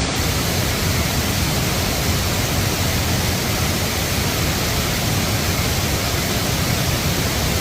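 Steady, loud rush of water from a rain-swollen mountain stream cascading down a rocky slope after heavy rain.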